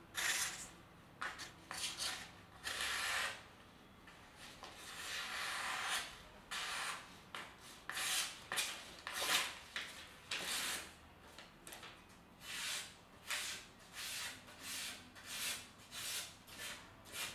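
Stainless steel kitchen knife slicing through sheets of paper in a sharpness test: a long run of short rasping cuts, coming faster in the second half, with paper rustling between them.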